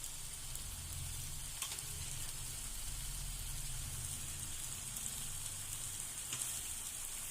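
Pasta and sauce sizzling steadily in a hot pan over a high flame, with a couple of faint clicks.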